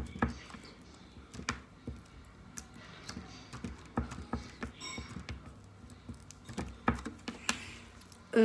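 Irregular clicks, taps and small sticky pops of homemade glue slime being worked with water in a container, the taps scattered unevenly through the stretch.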